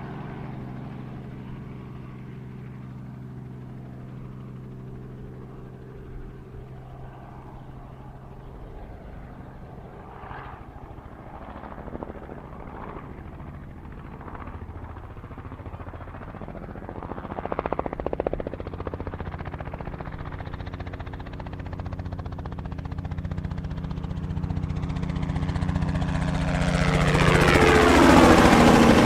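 Robinson R44 helicopter's piston engine and rotor running steadily, then growing much louder over the last few seconds as it comes close, loudest near the end.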